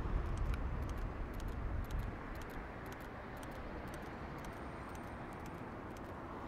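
City street ambience: a low rumble of a passing vehicle that fades about two seconds in, over steady traffic noise, with faint clicking footsteps on pavement.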